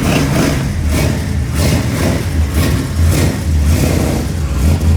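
Car engine running loud, its deep low sound pulsing unevenly with repeated surges of revving.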